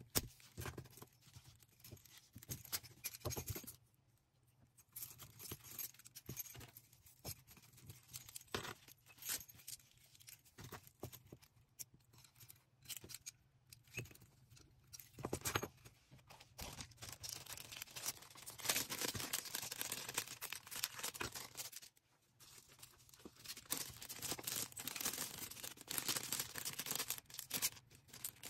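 Hands packing small orders: plastic packaging rustling and tearing, with scattered clicks and taps of small items being handled. The rustling grows denser about two-thirds of the way in, pauses briefly, then resumes.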